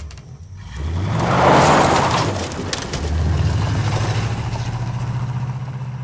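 Car engine being started: it catches about a second in with a brief rise in revs, then settles into a steady idle.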